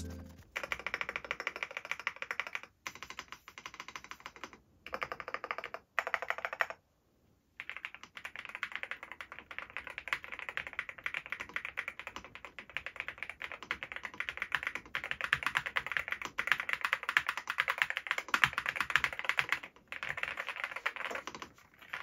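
Typing on a NuPhy Gem80 mechanical keyboard with stock Gateron x NuPhy Raspberry switches, an FR4 plate and silicone-bean mounts of hardness 70: rapid, continuous keystrokes with a few short breaks, including one pause of about a second roughly seven seconds in.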